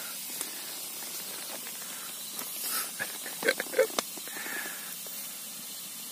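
Wood campfire burning with a steady hiss and scattered sharp crackles, one loud snap about four seconds in.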